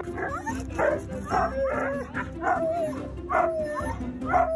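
Siberian huskies harnessed in a sled team barking and yelping in a rapid string of calls, about one or two a second, many dropping in pitch at the end. This is the team's clamour just before setting off.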